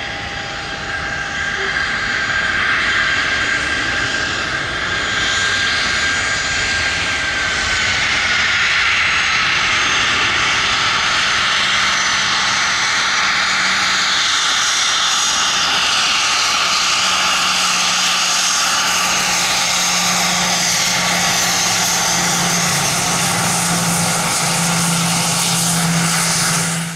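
Twin Rolls-Royce BR710 turbofans of a Bombardier Global 5000 business jet spooling up to takeoff power as the jet accelerates down the runway. A loud, steady jet roar grows louder twice in the first eight seconds, and a whistling whine within it falls in pitch about seven seconds in. The sound cuts off suddenly at the end.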